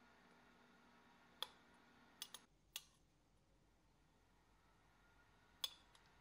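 A handful of short, sharp light clicks of a metal spoon touching a metal muffin pan while blueberries are set onto batter, against a near-silent background.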